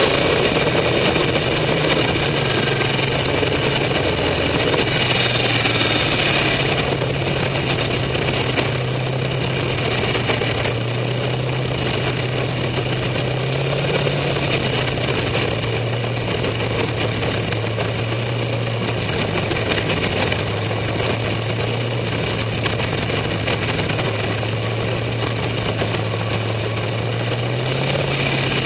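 Wilroc race car's engine running steadily at low revs, heard from inside the open cockpit as the car rolls slowly, its pitch rising and falling a little now and then.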